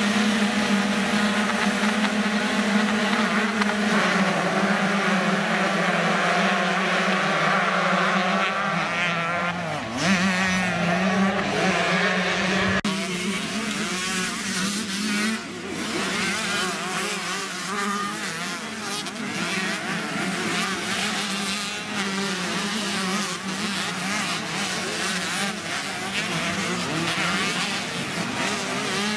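A field of enduro dirt bikes revving together on the start line, many engine notes overlapping into one dense sound. About thirteen seconds in the sound changes abruptly to bikes running and revving out on the track.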